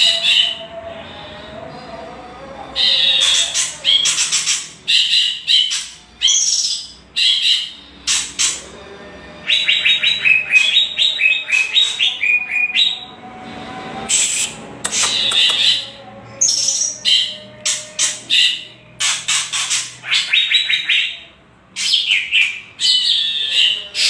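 White-rumped shama and greater green leafbird giving rattling, chattering calls: bursts of sharp high notes with quick runs of repeated notes. These are the kretekan calls played to provoke caged songbirds into answering.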